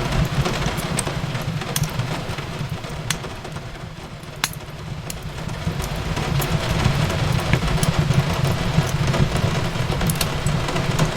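Fireplace crackling, with scattered sharp pops over a steady low rumble, mixed with rain falling on a window. It eases a little a few seconds in, then builds back up.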